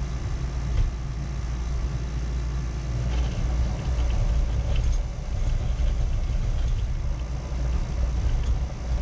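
Motor-driven rod-wrapping machine running steadily with a low hum, turning a fishing rod as thread is wound onto it by hand; the rod is slipping a little in the chuck because its old rubber butt cap is loose. A few faint ticks come about three to five seconds in.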